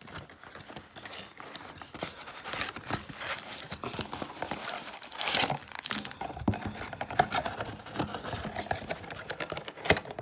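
Plastic shrink-wrap crinkling and tearing as a trading-card blaster box is unwrapped and opened, with a louder rip about five seconds in and a sharp click near the end.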